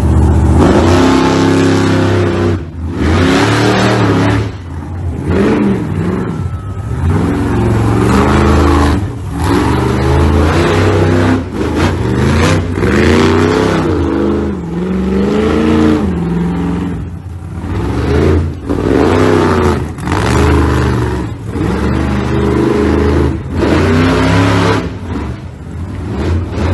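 Monster truck engines revving hard over and over, the pitch climbing and falling with each burst of throttle.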